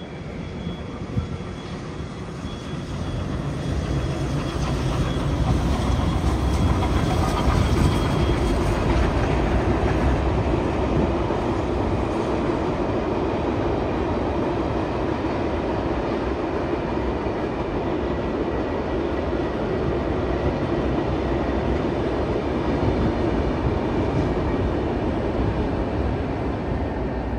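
A heritage passenger train crossing a railway bridge: a heavy, steady rumble of carriages and wheels on the rails that builds over the first six seconds and then holds. The diesel locomotives at the rear of the train pass near the end.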